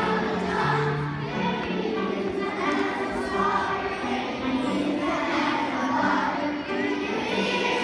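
A large children's choir singing a song together over musical accompaniment, with held notes and a steady bass line under the voices.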